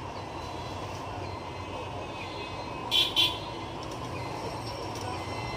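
Two short, sharp plastic clicks about three seconds in, as the plastic housing of a Canon LBP 6030 laser printer is shifted. They sound over a steady background rumble.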